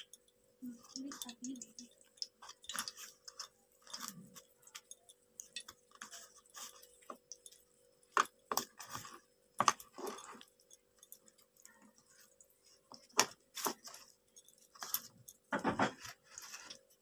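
Fingers rubbing salt and turmeric into pieces of raw fish in a plastic bowl: soft, irregular wet squelches and small crackly clicks, over a faint steady hum.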